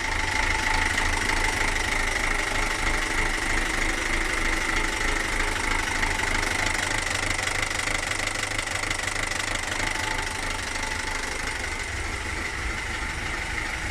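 Great Wall Hover H3 engine running with a knocking noise and uneven running, the revs wavering up and down. The mechanic suspects the timing belt has jumped a tooth.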